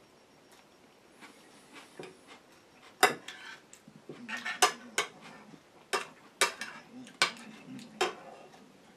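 Dishes and metal utensils clinking and clattering: a quick run of sharp clinks starting about three seconds in, the first one the loudest.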